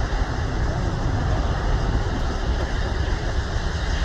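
Twin-engine wide-body jet airliner on its takeoff roll, engines at takeoff power making a steady, even rushing noise with a strong low rumble.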